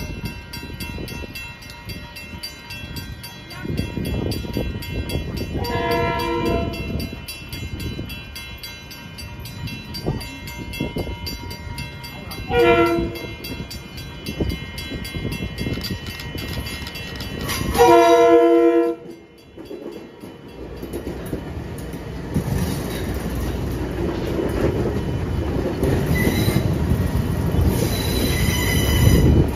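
Kawasaki M8 electric multiple-unit train sounding its horn three times on approach: a blast of about a second, a shorter one, then the loudest. After that the rumble of its wheels on the rails builds as the cars roll past, with some faint wheel squeal near the end.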